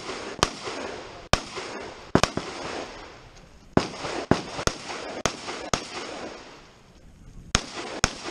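Rifle shots fired in a run of about ten single shots at irregular spacing, half a second to a second and a half apart, each trailing off in a short echo. There is a pause of nearly two seconds before the last shot.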